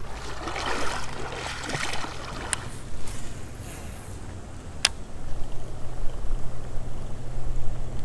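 Shallow river water splashing and trickling around an angler's legs while wading, busiest for the first three seconds. Two sharp clicks from handling the fishing tackle come about two and a half and five seconds in, and a steady low rumble follows in the second half.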